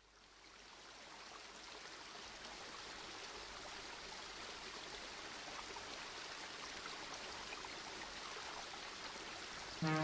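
Steady rush of flowing river water, fading in over the first couple of seconds. Music comes in right at the end.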